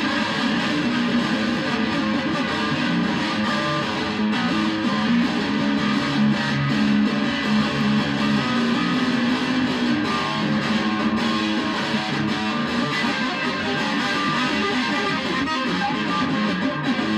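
Electric guitar playing a rock and roll solo, continuous and loud.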